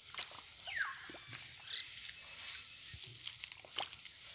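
Hands groping and digging in soft wet paddy-field mud: quiet, irregular squelches and small wet clicks, with a short falling chirp about a second in.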